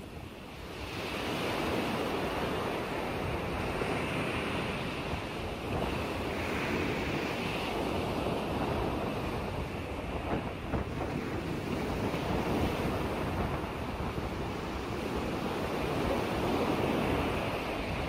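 Choppy lake waves washing and splashing, with wind buffeting the microphone. The sound rises about a second in and then stays steady.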